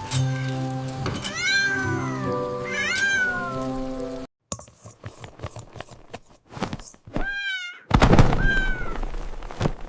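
A cat meowing four times, each meow rising then falling in pitch. The first two come over light background music; after the music cuts out about four seconds in, scattered knocks and clicks are heard, then two more meows with a loud thud just before the last one.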